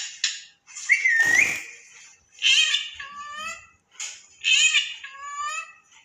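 Pet parrot whistling and calling: a short rising whistle about a second in, then two longer calls, each bending downward in pitch, about two seconds apart.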